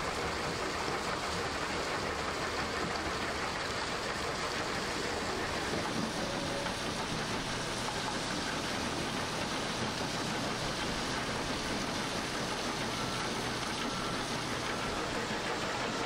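Steady, even rushing noise of heavy machinery at a gravel crushing site: a wheel loader and a mobile crushing and screening plant running.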